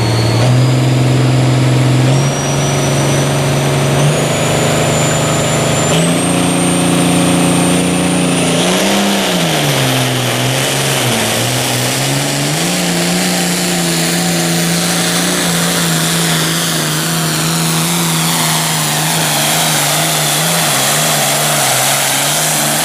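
Farmall 1206 turbo-diesel pulling a sled under full load. The engine pitch climbs in steps over the first six seconds while a high turbo whine rises with it. Around nine to twelve seconds in the engine dips twice as it loads down, then holds steady while the whine slowly falls.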